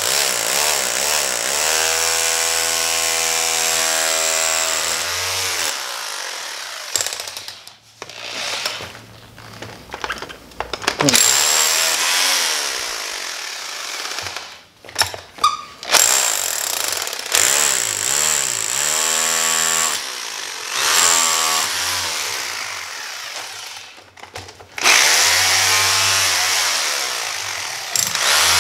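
Electric rotary hammer driving its bit into a bowling ball to break out the thumb insert, running in several long bursts with short stops between them, the motor pitch rising and falling as it bears down.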